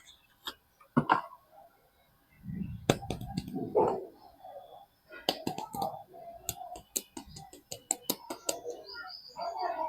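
Soap packaging being handled and unwrapped: irregular crinkling and rustling with sharp clicks, busiest in the second half.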